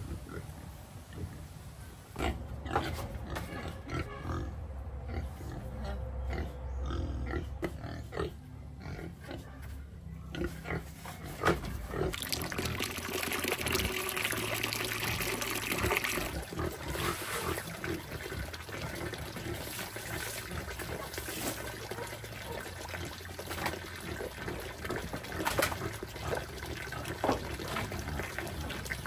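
Pigs grunting in their pen. About halfway through, an outdoor tap is opened and water runs steadily into a plastic bucket.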